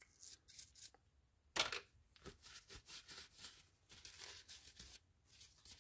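Faint, intermittent scrubbing and wiping as old grease is cleaned off a fishing reel's metal side plate with a toothbrush and a paper towel, with one louder stroke about a second and a half in.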